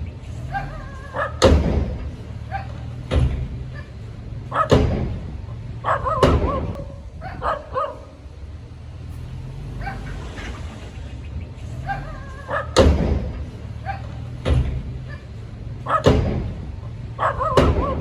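Heavy-equipment diesel engine running with a steady low drone, broken by loud, short sharp sounds about every one and a half seconds, in two runs of four with a quieter gap between.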